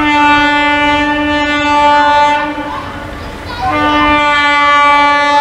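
Electric locomotive's horn sounding two long blasts, each about two seconds, with a short gap between.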